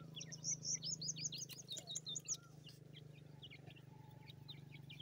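Francolin chicks peeping: a quick run of short, high, falling peeps for the first two seconds or so, then fainter scattered peeps.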